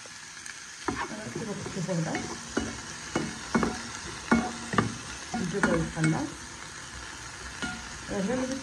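Diced chicken breast sizzling in a hot nonstick frying pan, with a wooden spatula knocking and scraping against the pan as it is stirred, about two strokes a second.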